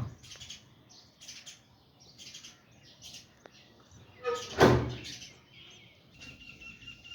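Sparrows chirping in short, scattered chirps, with one louder call about four and a half seconds in and a steady high tone near the end.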